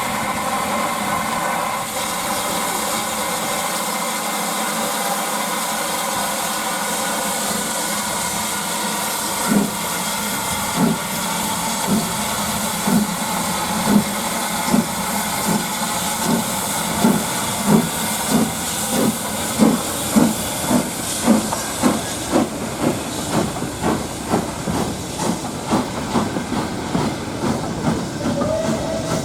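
Steam locomotive pulling away: a steady hiss of steam, then from about ten seconds in its exhaust beats start, slow at first and quickening steadily.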